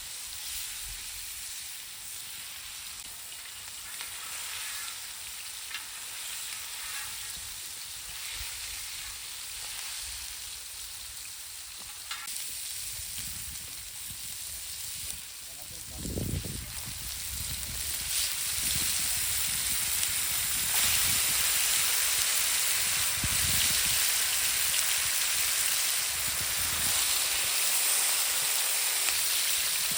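Chicken leg pieces frying in oil on a tava: a steady sizzle that grows clearly louder a little past halfway, with a few low thuds of the pieces or pan being handled.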